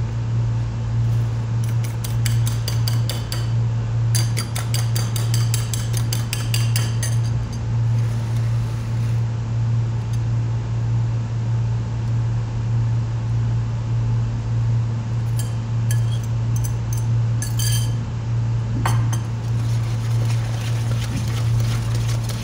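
Quick runs of clinks from a fork beating eggs against a ceramic bowl, a couple of seconds in and again in shorter runs later, over a steady low hum.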